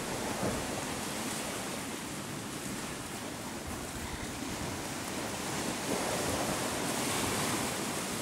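Sea waves washing, with wind blowing on the microphone. The wash swells a little louder about six seconds in.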